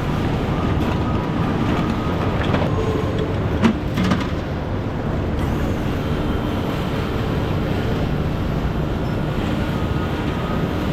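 Vehicle driving on the road: a steady low rumble of engine and road noise with rattling, and a couple of sharp knocks about four seconds in.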